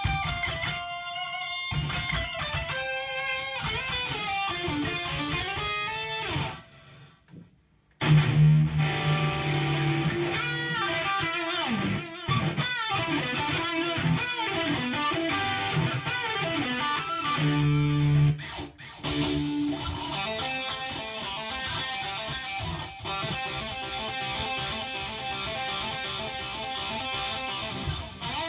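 Electric guitar played through a DigiTech 2101 tube preamp and effects processor: a lead line with bends, a short pause about seven seconds in, then heavier distorted riffing with strong low notes.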